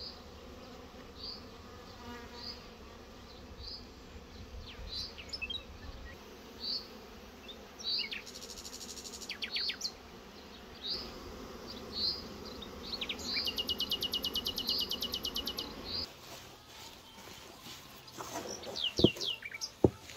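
Honeybees humming around beehives, with a small bird repeating a short high chirp about once a second and twice giving a fast trill. Near the end, irregular wet squelches and slaps of bread dough being kneaded by hand.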